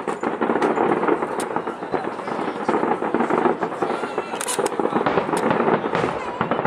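Aerial fireworks shells bursting in a dense barrage: many sharp pops over continuous crackling.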